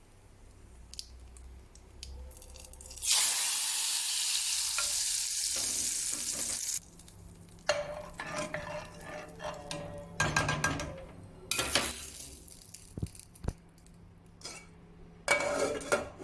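Cooking in a pot at the stove: a loud hiss starts about three seconds in and cuts off abruptly about four seconds later, followed by a spoon clinking and scraping against the pot as the food is stirred.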